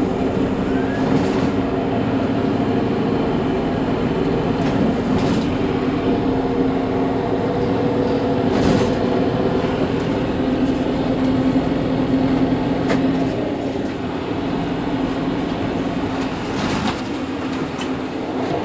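Mercedes-Benz Citaro G C2 articulated city bus idling at a stop, a steady engine hum with a few short clicks and knocks.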